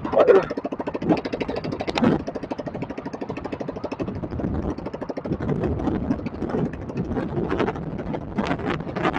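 Small fishing boat's engine running steadily with a fast, even chugging, with a few louder knocks in the first two seconds.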